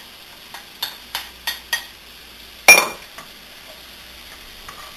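Chopped bell pepper scraped with a wooden spoon off a cutting board into a cast-iron skillet of vegetables sautéing in butter: a few light taps, then one loud, sharp knock with a short ring a little past halfway, over a faint steady sizzle as the spoon stirs.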